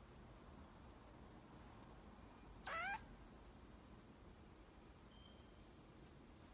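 Baby common marmoset giving high-pitched calls: a short whistle about a second and a half in, a longer wavering squeal a second later, and another short whistle near the end.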